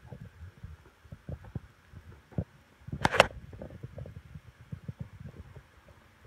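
Soft, irregular low thumps and rustles of a hand stroking a kitten on a blanket right against the phone's microphone, with one louder scrape about three seconds in.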